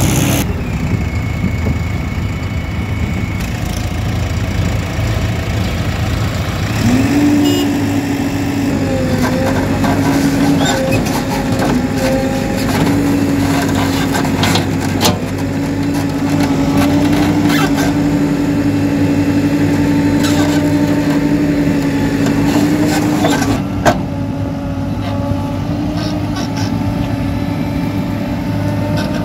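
Diesel engine of a JCB 3DX backhoe loader running while digging and loading soil. Its pitch rises about seven seconds in and holds steady at the higher speed. Near the end there is a single sharp clank.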